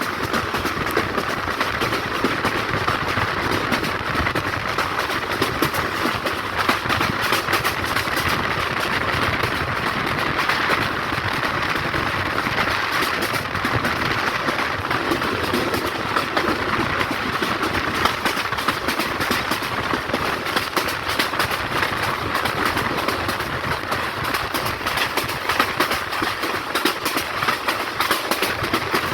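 Rangpur Express passenger train running steadily on the rails: continuous wheel and carriage rattle with the clickety-clack of the rail joints.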